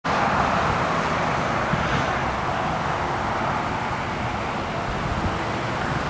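Steady outdoor background noise: a continuous hiss over a low, unsteady rumble.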